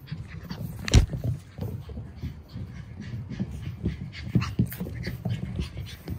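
Boston terrier puppies playing with toys: a busy run of small knocks, scuffles and rustles from paws and toys on the floor, with one loud thump about a second in.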